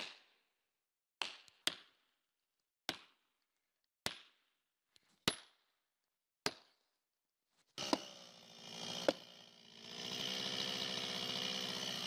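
Sharp blows driving a felling wedge into the back cut of a large tree, about one strike every second and a bit, seven in all. About 8 seconds in a chainsaw starts up, and from about 10 seconds it runs steadily at high revs.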